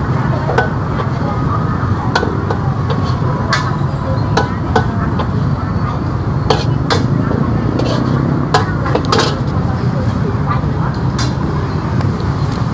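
Night-market street noise: a steady low rumble of passing traffic and motorbikes with background voices, broken by irregular sharp clinks and knocks of a food vendor's utensils against a metal mixing bowl.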